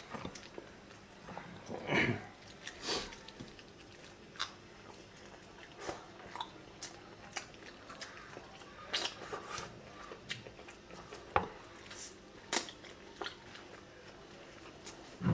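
Close-up mukbang eating sounds: chewing, wet lip smacks and mouth clicks as saucy rabbit adobo is bitten off the bone and chewed, with a few louder smacks about two to three seconds in.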